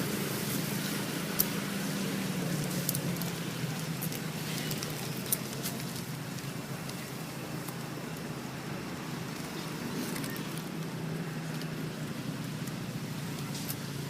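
A motor vehicle's engine running steadily at low revs, its pitch sagging slightly now and then, with scattered small ticks and rustles over it.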